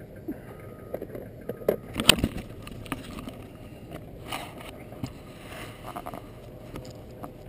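Handling noise from a camera being picked up and moved on gravel: scattered clicks, knocks and scrapes, the loudest about two seconds in, over a steady low rumble of wind. A faint short beep repeats about once a second through the first two seconds.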